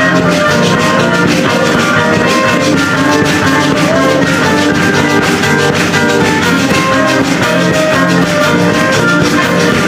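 Instrumental music: a band intro with drum kit, guitar and bright steelpan-like keyboard notes over a steady beat.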